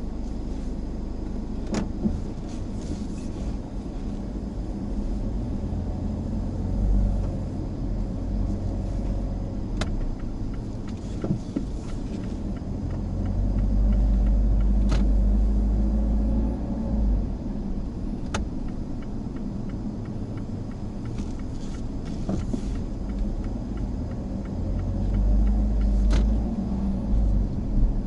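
Mazda Axela Sport (Mazda3) driving: a steady low rumble of engine and road noise that swells twice, with a few sharp isolated clicks.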